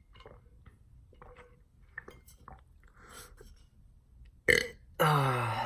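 A young man burps on purpose: a short gulp about four and a half seconds in, then a longer burp whose pitch falls. Faint mouth clicks come before it.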